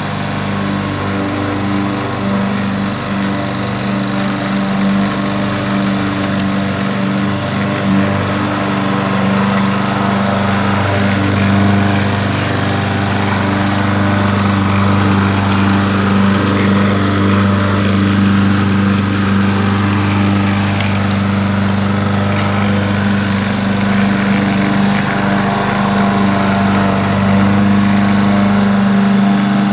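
Craftsman walk-behind gas lawn mower's small engine running steadily at a constant speed while being pushed across grass.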